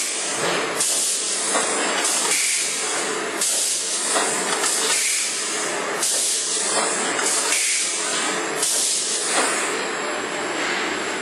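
Shrink-wrap packing machine cycling. A sharp hiss of air comes four times, about every two and a half seconds, over its steady running noise.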